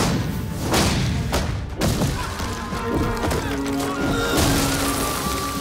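Artillery shell explosions in a film battle scene: several blasts in the first two seconds and another about four and a half seconds in, over sustained film-score music.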